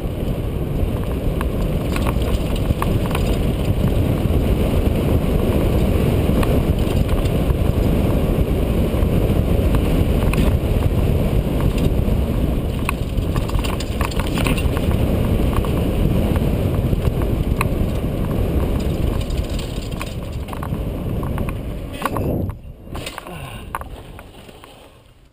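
Wind rushing over a helmet-mounted action camera's microphone as a mountain bike rolls fast down a dirt singletrack, with clicks and knocks from the bike rattling over rough ground. The rush fades out near the end as the bike slows.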